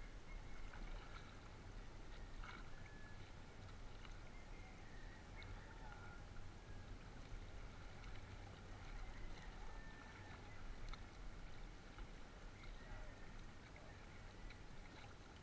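Faint water lapping and splashing around a small outrigger canoe on calm sea, over a low steady rumble, with a few faint short high chirps and ticks scattered through.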